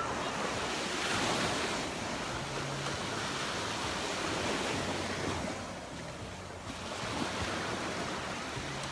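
Surf breaking and washing up the beach, with wind on the microphone. The wash swells about a second in and eases briefly around six seconds.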